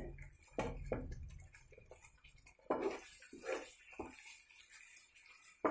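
A flat spatula stirring a thick, sticky coconut-and-jaggery mixture in a pan: a few soft, wet stirring strokes at irregular intervals as the jaggery syrup cooks down and thickens.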